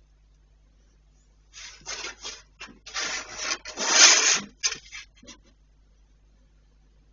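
A Cane Corso dog makes a run of about a dozen short, harsh, toneless noises over some four seconds, loudest near the middle.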